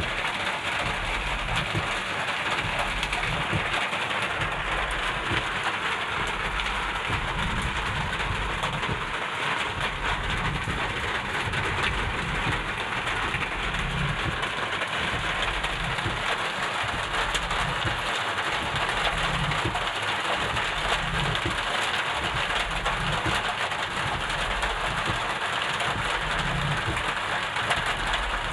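Rain falling steadily, an even hiss that holds at one level throughout, with an uneven low rumble underneath.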